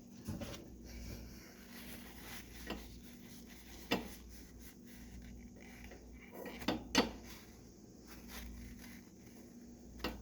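Metal steam whistle valve parts being handled and wiped clean: scattered light clicks and knocks, the sharpest about four and seven seconds in.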